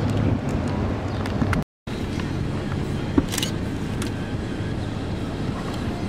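A large diesel engine of heavy construction machinery runs steadily with a low hum, with a few light clicks over it. The sound cuts out completely for a moment about a second and a half in, then the engine hum carries on.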